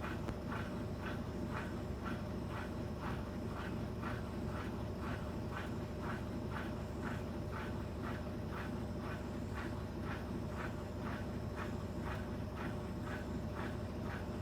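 Electrolux Turbo Economia 9 kg LTE09 washing machine in the final spin of its heavy/dirty cycle: a steady motor hum with a regular swish about twice a second.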